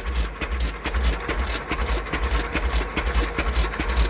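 208 oilfield pump-jack engine running at a slow, steady pace with even firing beats, roughly two a second. It is running normally just after being hand-cranked, its exhaust quieted by a long stack used as a muffler.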